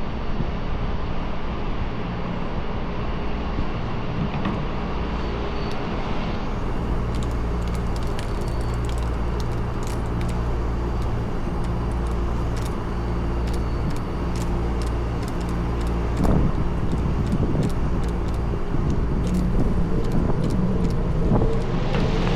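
AAON rooftop unit's condenser fan motor running with a steady low hum, its new plastic rain shield fitted. Faint light ticks come in from about a third of the way in.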